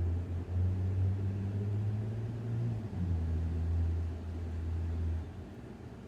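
Deep, steady low drone of street traffic noise. It shifts pitch twice and cuts off about five seconds in, leaving a fainter background rumble.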